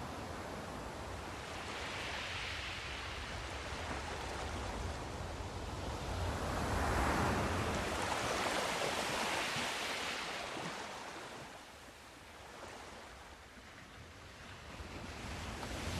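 Sea surf: waves breaking and washing on the shore, swelling to a peak about halfway through, then ebbing before the next wave builds near the end.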